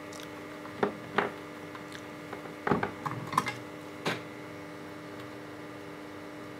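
About six light clicks and knocks of small hand tools and parts being handled and set down on a workbench, over a steady hum. The clicks stop about four seconds in, leaving only the hum.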